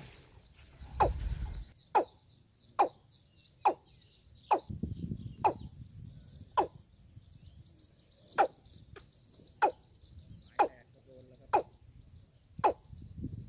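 Watercock calling: one short downward-sweeping note repeated about once a second. A steady high insect trill sounds behind it.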